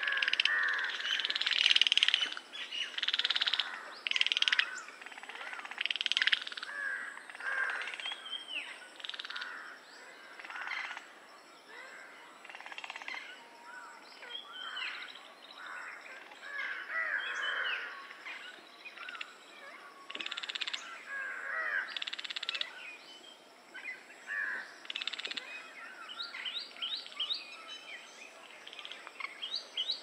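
A chorus of frogs calling: many overlapping croaks and short rising calls, loudest in the first few seconds, with a quick run of repeated calls near the end.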